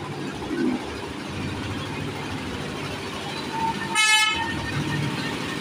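A miniature park train's horn gives one short toot about four seconds in, over the low, steady running of the train as it pulls into the platform.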